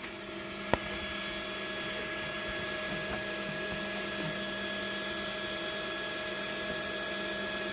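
Steady whir of a motor-driven fan running with a constant hum, broken once by a sharp click less than a second in.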